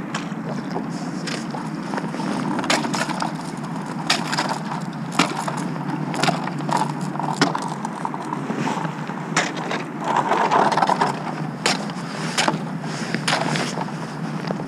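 Thin skim ice cracking and crunching as a stand-up paddleboard's nose and paddle break through it: irregular sharp cracks with ice scraping along the board, heaviest about ten seconds in, over a steady low noise.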